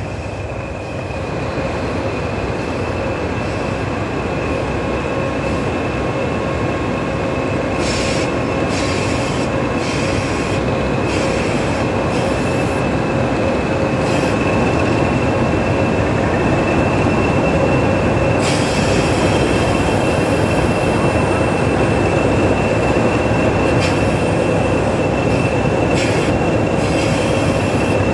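A pair of English Electric Class 20 diesel locomotives hauling a train, heard from the train: steady engine and running noise with a high-pitched whine, growing slowly louder, and occasional clicks over the rails.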